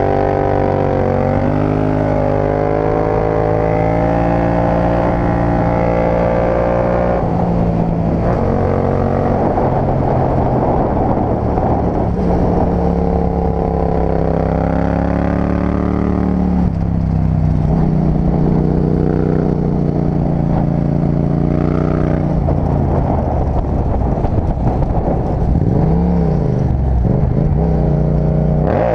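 Yamaha MT-07's 689 cc parallel-twin engine running under way at riding speed, its note rising and falling several times as the throttle is opened and closed.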